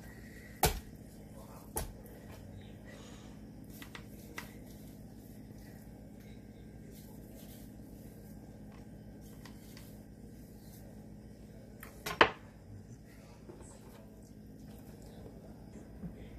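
A few sharp knocks of a whole fish and a kitchen knife against a wooden cutting board while the fish is handled and scored. Two come in the first two seconds, and a much louder one a little after halfway. A low steady hum runs underneath.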